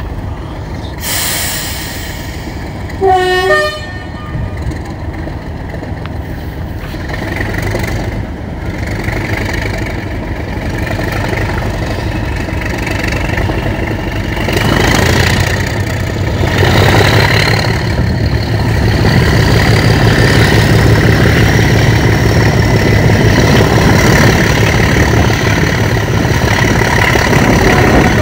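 Class 37 diesel-electric locomotive's English Electric engine working hard as it hauls its train, growing louder through the clip, with its turbocharger whistle rising in pitch. The locomotive's horn gives a short toot that drops in pitch about three seconds in.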